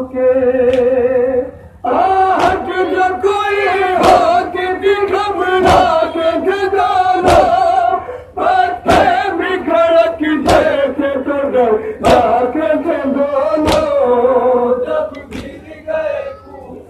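Male voices chant an Urdu noha (Shia lament) over a microphone with a group singing along, and a sharp collective chest-beat (matam) lands in unison about every second and a half, keeping the rhythm.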